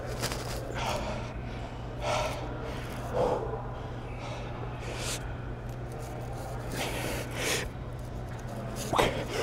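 A weightlifter breathing hard from the effort of a set of barbell curls: about eight sharp, noisy gasps and exhales, irregularly spaced, over a steady low hum.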